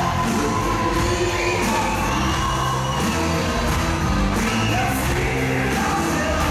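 Live pop music with singing, played loud and steady through the stage PA.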